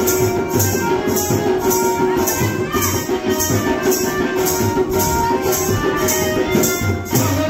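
Music with a steady shaken-percussion rhythm, about two strokes a second, over a low drum beat and a few held tones.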